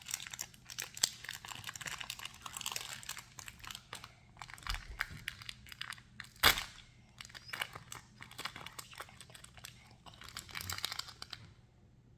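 Plastic and foil toy packaging crinkling and tearing as a blind-bag mystery toy is unwrapped by hand, with one sharp knock about six and a half seconds in. The crackling stops about a second before the end.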